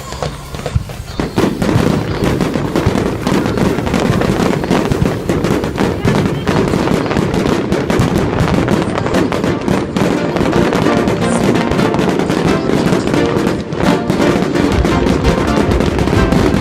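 Fireworks going off in quick succession, with many sharp cracks and bangs, over music. It gets louder about a second in.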